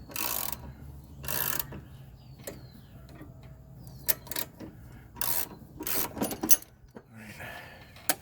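Hand tools working on a seized mower blade adapter and puller: a series of short, irregular rasping metal strokes with sharp clicks in between.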